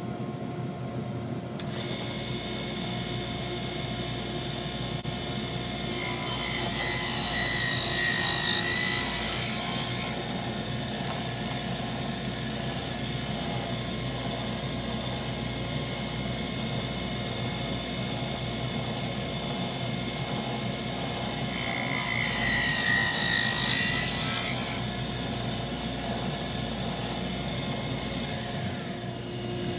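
Small benchtop table saw running with a steady whine, cutting a groove through small wooden blocks in two passes, about six seconds in and again past twenty seconds. During each cut the whine dips in pitch as the blade bites and then recovers.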